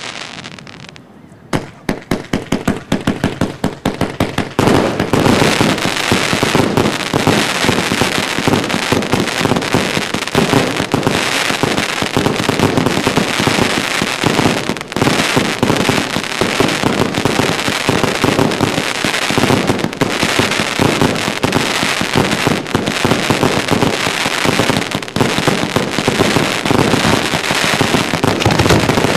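Fireworks: after a short lull, a rapid barrage of bangs and crackling begins about two seconds in and grows denser, running on without a break, as rising crackling tails burst overhead.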